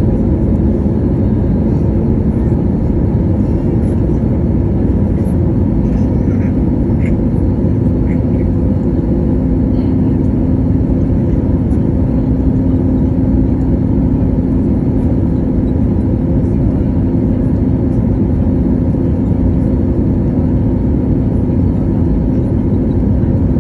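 Steady cabin noise inside an Airbus A320neo in flight: the hum of its CFM LEAP-1A turbofan mixed with the rush of airflow. A steady low hum tone in it grows stronger about six seconds in.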